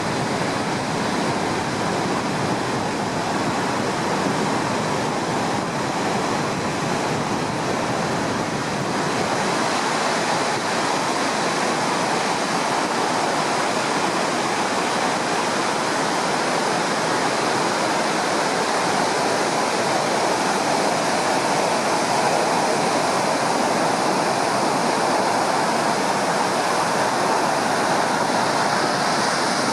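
Heavy ocean surf breaking on the shore, a continuous, steady rush of water. The waves are a high swell raised by distant typhoons.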